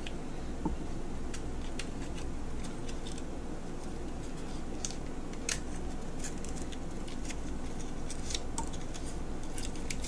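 Scattered light clicks and ticks of small parts being handled during an under-cabinet light bulb swap, over a low steady hum.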